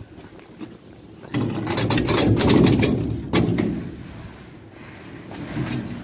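A metal bar gate and its ground bolt being handled: about a second in, a loud clattering rattle runs for about two seconds and ends in a sharp metal knock, followed by quieter scraping at the bolt.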